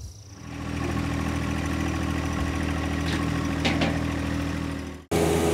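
Tractor engine idling steadily. It comes up about half a second in and cuts off abruptly near the end, with two short clicks a little past the middle.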